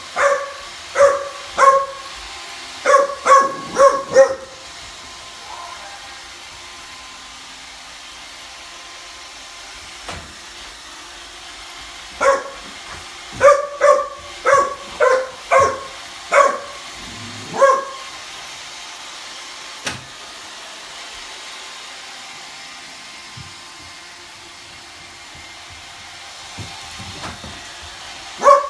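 A young boxer dog barking at a running robot vacuum. It gives short, high barks in two quick runs, about seven in the first four seconds and about eight more from twelve to eighteen seconds in, with a couple just before the end. Under them is the steady hum of the iRobot Roomba robot vacuum.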